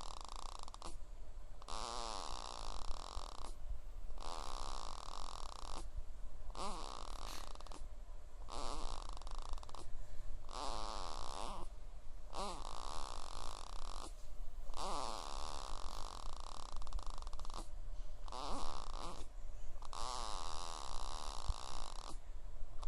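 Baby snoring: a run of rasping breaths, each one to two seconds long, with short pauses between.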